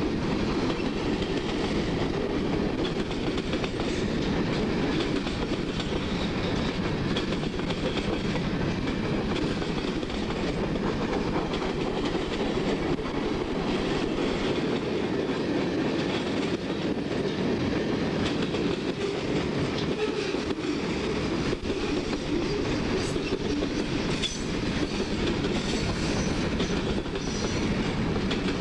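Freight cars of a CSX train rolling past close by: a steady rumble with the clatter of steel wheels over the rail joints.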